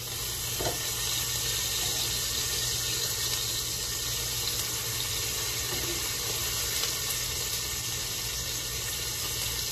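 Raw bacon strips sizzling on a hot stovetop griddle pan as they are laid down with tongs: a steady hissing sizzle that grows louder as the first strips go on.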